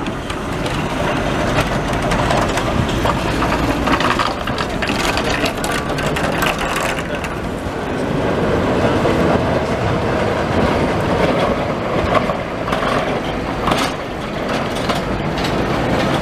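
Vintage electric trams rolling along street track. The wheels and running gear clank and rattle over the rails, with many scattered knocks.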